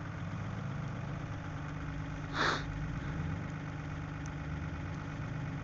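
A vehicle engine idling steadily, with one short hissing burst about two and a half seconds in.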